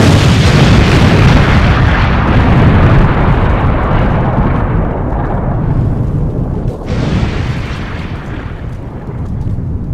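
A sudden loud blast like an explosion, then a long deep rumble that slowly dies away over the following seconds, matching a flash from the model patrol boat's gun.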